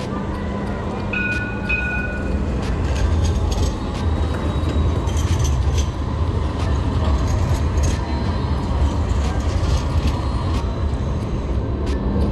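Sydney light rail tram passing close by, a steady low rumble throughout, with a short two-part high tone about a second in.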